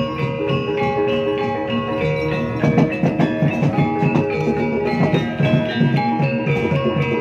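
Gamelan music accompanying an ebeg dance: metal mallet instruments ringing in held notes over steady drum strokes.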